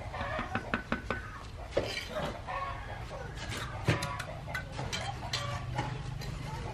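Chickens clucking amid scattered sharp knocks and clicks, over a steady low hum.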